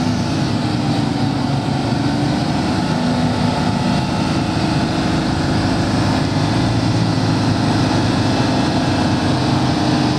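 Car engine idling steadily, its pitch drifting slightly up and down.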